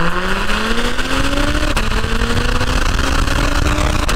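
Acura TLX Type S's turbocharged 3.0-litre V6 heard at the tailpipes of its factory active exhaust under acceleration. The note rises, drops at an upshift about one and a half seconds in, rises again and drops at another shift near the end, over a steady rush of road and wind noise.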